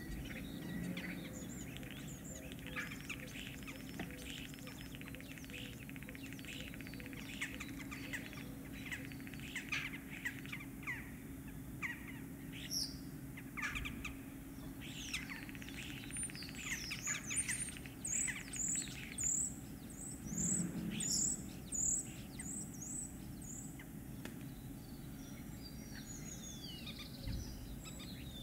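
Common starling singing: a long, varied run of clicks, rattles and quick whistles. In the second half comes a string of loud, high notes at about two a second.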